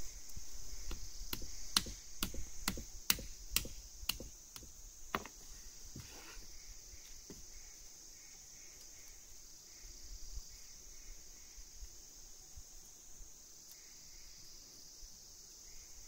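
Steady high-pitched insect chorus. In the first five seconds a run of about ten sharp clicks or taps comes roughly two a second.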